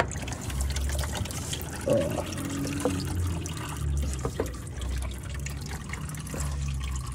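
Used diesel engine oil trickling off the underside of the car into a plastic drain pan, a steady trickle with scattered drips, as it runs out of the just-unscrewed oil filter housing.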